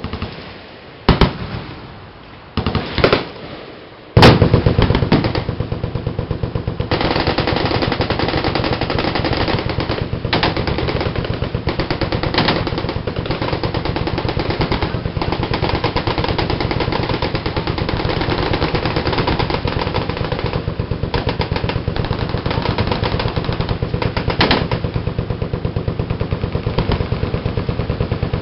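Machine-gun fire: a few separate shots and short bursts, then from about four seconds in a long, unbroken stretch of rapid automatic fire.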